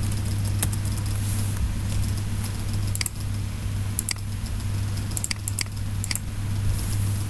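Several sharp clicks of a computer mouse and keyboard over a steady low hum.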